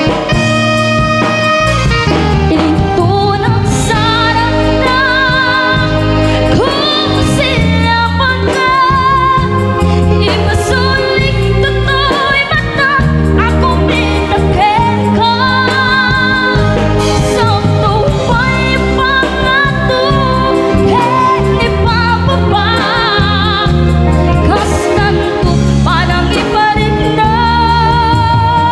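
Live band performing an Ilocano-language song: singing with vibrato over electric bass guitar, drums, keyboard and tambourine.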